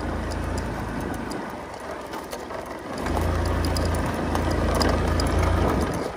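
Wind rumble on the microphone and tyres rolling over a dirt forest track while riding along it; the low rumble drops away for about a second and a half in the middle, then returns stronger.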